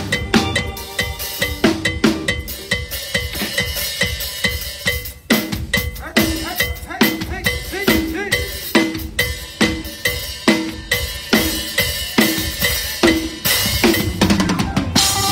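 Solo drum-kit groove: a cowbell struck steadily about three times a second over kick and snare hits. A busy fill with a cymbal crash comes near the end.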